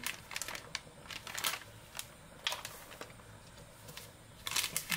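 Irregular clicks, taps and short rustles of kitchen handling, coming at uneven intervals, with a denser cluster near the end.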